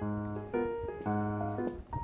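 Background instrumental music: a tune of short held notes over a held bass note, the chords changing about every half second.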